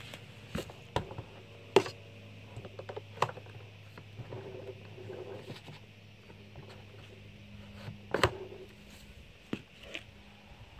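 Knocks and clunks of a plastic retractable hose reel housing being lifted onto and seated in its wall bracket. The loudest is a sharp knock near two seconds in, with another cluster of knocks about eight seconds in, over a faint low steady hum.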